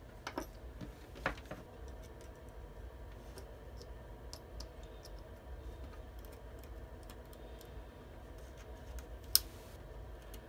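Faint, scattered clicks and taps of multimeter probe tips and a small rotary switch being handled during a continuity test, with one sharper click about nine seconds in.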